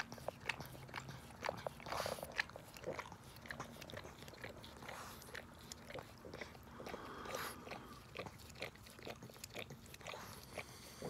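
Pug licking a person's face and ear: many quick, irregular wet clicks and tongue smacks.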